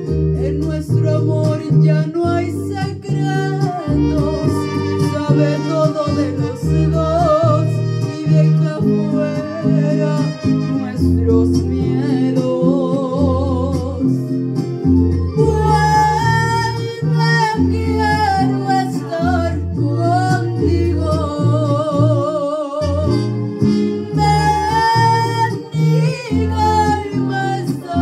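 A girl singing a Latin song with strong vibrato into a microphone, over a recorded accompaniment of guitar and bass.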